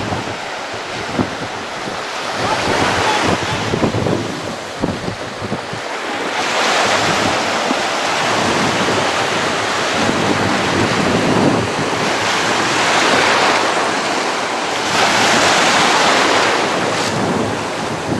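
Sea surf breaking and washing on the shore, swelling and easing every few seconds, with wind buffeting the microphone, strongest in the first few seconds.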